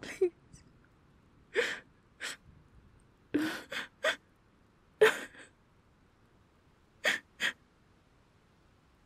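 A woman sobbing in sharp, gasping breaths: about nine short catches of breath in uneven pairs and threes, quiet between them, the loudest about five seconds in.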